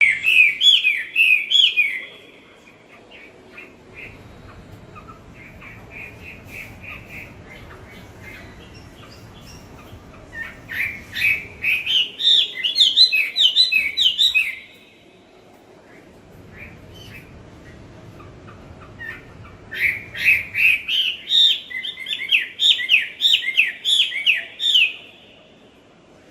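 Wambi birdsong, as played for training cage birds: three loud phrases of fast, repeated high chirping notes. The first comes at the start, the second about ten seconds in and lasts some four seconds, and the third about twenty seconds in and lasts some five. Softer chirps fall between the phrases.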